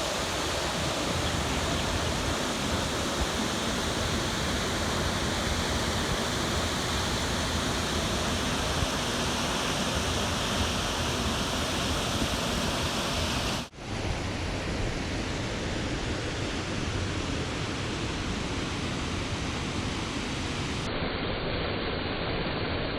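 Waterfall and its waterhole: a steady rush of falling water, broken once by a brief dropout about fourteen seconds in.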